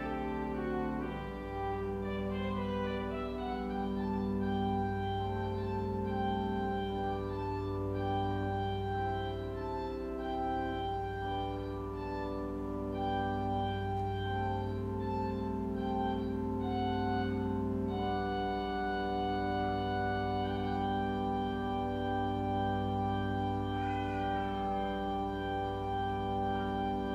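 Church organ playing slow, sustained chords over a long held note.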